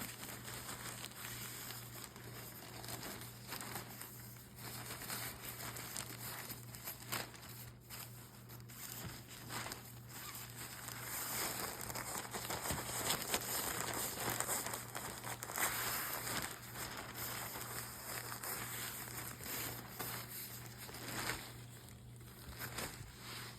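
Plastic sheeting crinkling and rustling continuously as it is handled, while a foam pad is worked into a plastic-sheet cover. The crinkling is louder through the middle of the stretch.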